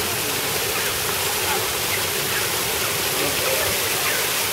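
Fountain water jets splashing steadily onto bronze sculptures and into the pool below, an even, continuous rush of falling water.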